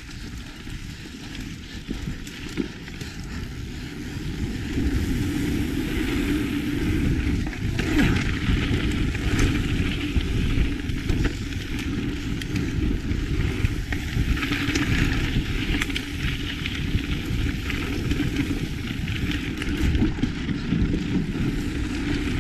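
Lapierre Zesty mountain bike ridden fast down a dirt trail: tyres rolling and crunching over the ground, with the bike rattling and knocking over bumps. Wind rushes on the camera microphone. It gets louder about four seconds in.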